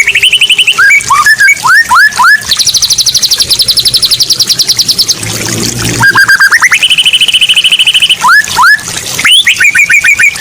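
A tame Javan myna calling: a string of quick rising whistles, then a fast, even high trill held for about two and a half seconds. After a short break come more rising whistles and a shorter trill near the end.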